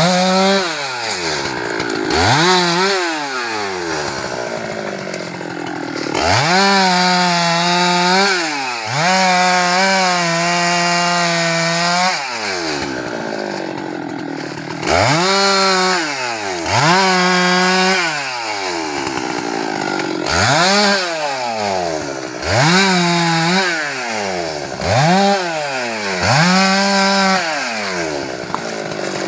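Husqvarna 390 XP two-stroke chainsaw revved again and again, about ten times: each time the pitch climbs, holds at full throttle for a second or so, then falls back to idle. Two longer holds, about a third of the way in, waver in pitch as the chain cuts teak wood.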